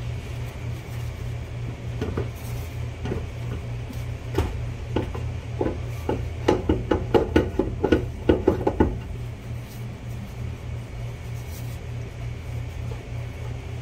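Metal knocks and clanks as a GM truck driveshaft is worked loose from the rear differential yoke and pulled back, scattered at first, then a quick run of sharp knocks, about three or four a second, for a couple of seconds past the middle, over a steady low hum.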